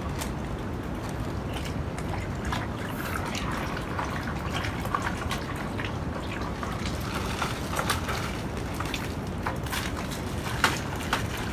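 Hands squeezing and kneading raw pig stomach in vinegar and salt to clean it: wet squelching and dripping, with many small irregular clicks over a steady background hiss.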